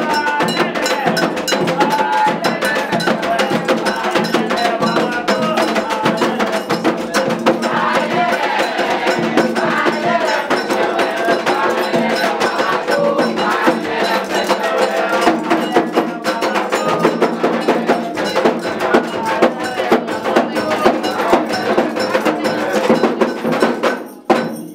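Candomblé ritual music: a metal bell struck in a steady rhythm over percussion, with voices chanting. It breaks off abruptly near the end.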